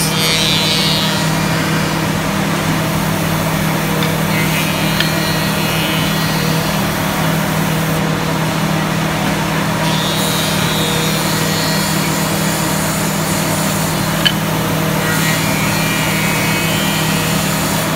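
Woodmaster CNC tenoning machine running with a steady hum, its cutters milling tenons on small wooden pieces in a burst of cutting noise about every five seconds. A single sharp click comes a little after halfway.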